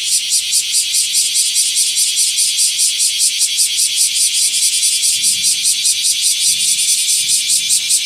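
Chorus of bear cicadas (kumazemi, Cryptotympana facialis) calling: a loud, harsh, high-pitched buzz pulsing evenly about four to five times a second.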